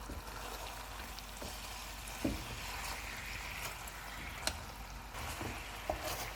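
Whole chicken frying uncovered in oil in a pot: a steady sizzle with a few sharp pops, as the last of its cooking liquid dries off.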